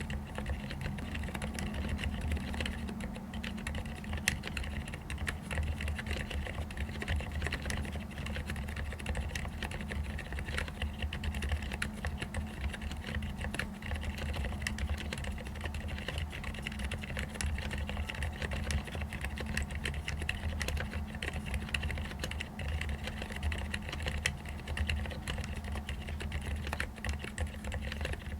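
Continuous typing on a mechanical keyboard with fully lubricated Cherry MX Silent Red switches: a quick, irregular run of soft keystrokes, mostly just fingertips striking the keycaps, over a steady low hum.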